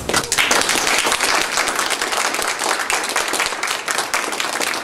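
Audience applauding, many hands clapping at once in a dense, steady clatter.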